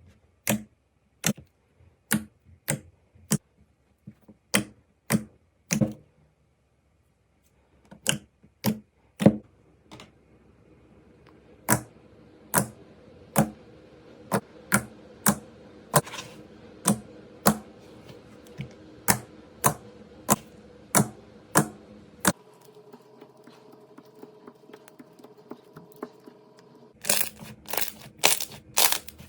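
Slime being pressed and poked, giving sharp clicking pops about once a second, with a brief pause partway through. It ends in a quick run of dense clicks.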